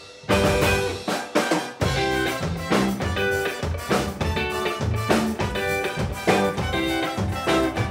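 Upbeat band music with a drum kit keeping a steady beat, bass notes and short repeated chord stabs, starting abruptly a moment in.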